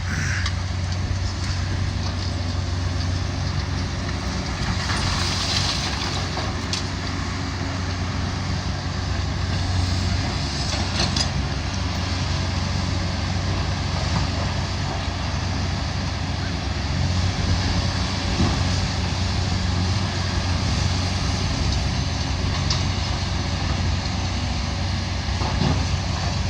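Diesel engine of heavy demolition machinery running steadily, a low even drone, with a few short knocks and clatters on top.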